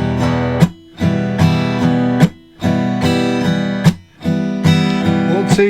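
Acoustic guitar strumming an E minor chord in a steady rhythm, with the ringing cut short by a brief muted stop about every second and a half.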